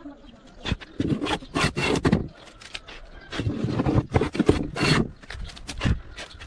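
Irregular scraping and rubbing on wood: a string of short noisy strokes with sharp knocks among them.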